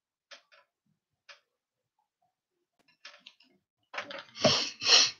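Scattered light clicks and handling noises from someone working with things at a desk, then two louder handling sounds about half a second apart near the end.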